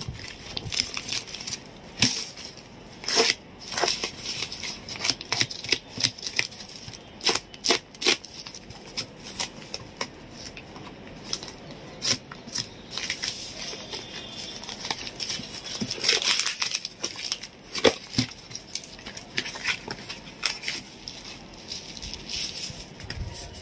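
A courier parcel's plastic-and-paper wrapping being torn open and crumpled by hand, with irregular ripping and crackling and sharp crinkles throughout.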